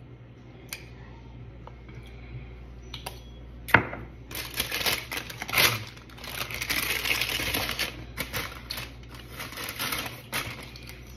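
A few sharp clicks, the loudest about four seconds in, followed by several seconds of dense crinkling and rustling of takeout packaging as condiment packets are rummaged for.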